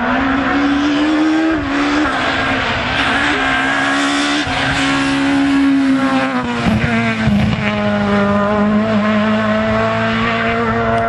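Rally car engine running hard at high revs, its pitch holding steady and then stepping down a few times as it passes.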